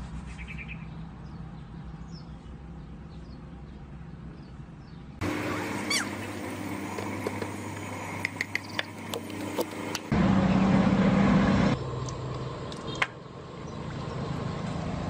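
A steady low hum, then, from about five seconds in, wok cooking: oil poured into the pan with a few sharp clinks, a loud rush, and then thin sweet potato slices frying in hot oil and being turned with a metal slotted skimmer.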